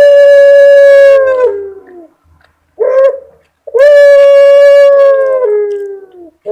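Puter pelung dove giving its long drawn-out 'crying' coo: two long held notes, each sliding down in pitch at the end, with a short coo between them.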